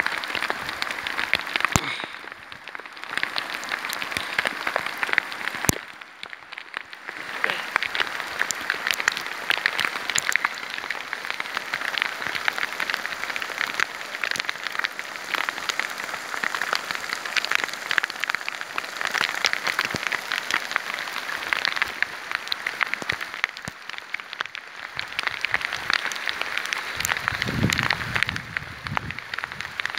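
Steady rain falling on a mountain lake and its stony, grassy shore: a dense pattering of countless small drops that eases briefly twice in the first several seconds.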